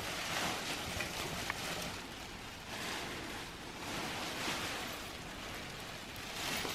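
Rustling of dress fabric being handled, a rough hiss that swells and fades several times.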